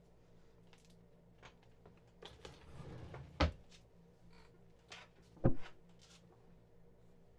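Small clicks and rustles of objects being handled at a desk, with two short, louder knocks about three and a half and five and a half seconds in, over a low steady hum.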